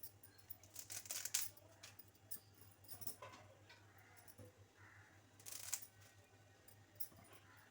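Faint scrapes and clinks of a metal utensil working dry spices in a pan, with the louder scrapes about a second in and again near six seconds.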